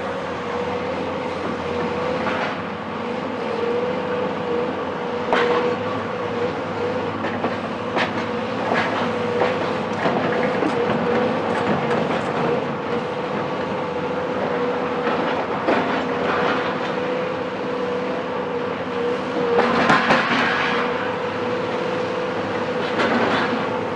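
Cat 374 demolition excavator's Cat C15 diesel running with a steady whine, over irregular knocks and clatter of material being worked; a louder crash lasting about a second comes about twenty seconds in.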